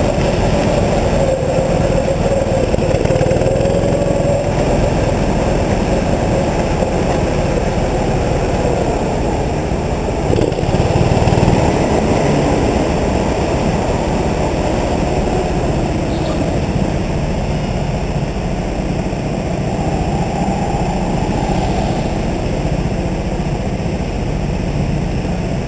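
Rental go-kart motor running hard from the driver's seat, its note rising and falling as the kart goes through corners, then easing off in the second half as the kart slows.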